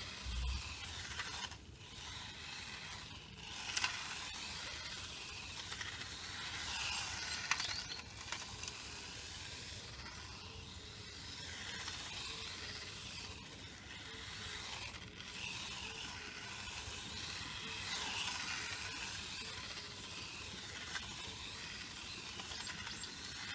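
Wltoys K989 small electric RC car's motor and gears whining, rising and falling in pitch as it speeds up and slows, over a steady hiss.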